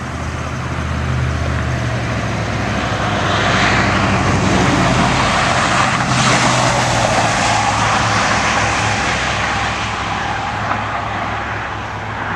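An ambulance driving past at speed: engine and tyre noise swells to a peak about six seconds in, then fades as it moves away, over a steady low engine hum.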